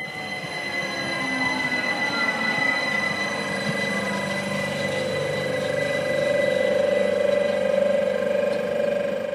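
Rhaetian Railway ABe 8/12 Allegra electric railcar train rolling past at close range, growing louder as the cars go by. Steady high whines from the electric drive run under the sound of the wheels on the rails. Over the second half a steady wheel squeal builds up and becomes the loudest part.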